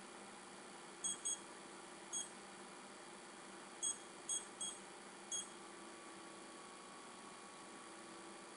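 Seven short electronic beeps from a digital weighing scale's buttons being pressed, irregularly spaced in the first half, as the scale is set up for weighing resin in grams.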